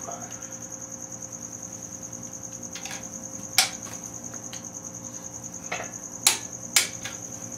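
Torque wrench on the main bearing cap bolts of a Ford 302 V8: sharp metallic clicks, one loud about three and a half seconds in and two more about half a second apart near the end. A steady high pulsing trill runs underneath.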